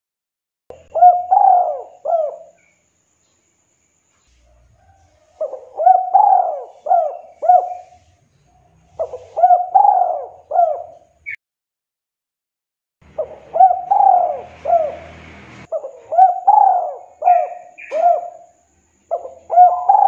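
Spotted dove (tekukur) cooing its 'kuk 2' call: about six phrases of several quick, arching coos, each phrase a second or two long, separated by short pauses, with the last phrase still going at the end.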